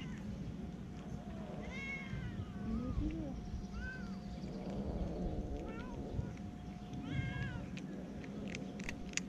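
A stray cat meowing about five times, each meow rising then falling in pitch, over a low background rumble.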